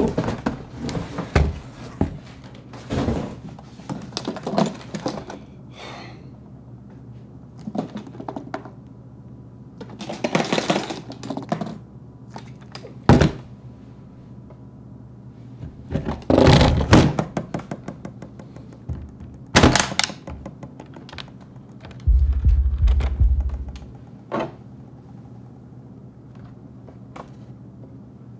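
Film sound of objects being handled: a string of thuds, knocks and clicks, with sharp hits about 13 and 20 seconds in and a dense clatter around 10 and 17 seconds in, over a low steady hum. A deep rumble lasts about two seconds from around 22 seconds in.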